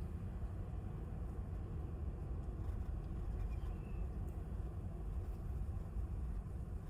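Steady low rumble heard from inside a car on a windy day, with a brief faint high note a little past halfway through.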